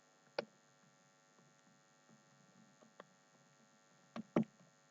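Faint steady electrical hum with a few soft clicks: one about half a second in and two close together near the end.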